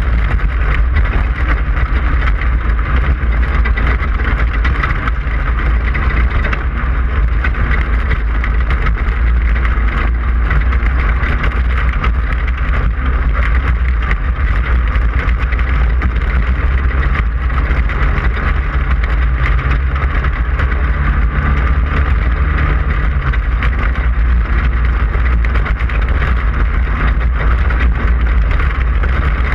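A Class 5/1600 desert race car under way, its air-cooled 1600cc Volkswagen engine running hard under a deep, steady rumble and constant rattling from rough terrain.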